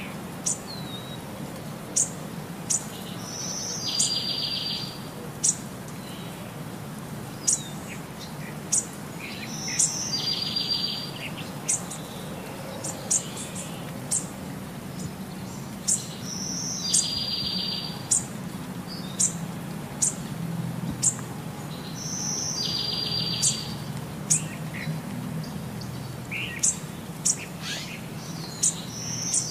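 Birds chirping: short, sharp high chirps come about once a second, and a longer trilled call repeats at even intervals of about six seconds, over a steady low background noise.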